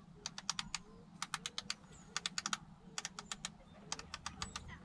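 Quick runs of small plastic clicks from a VHF marine radio's front-panel controls being worked by hand while it is checked for signals on channel 16.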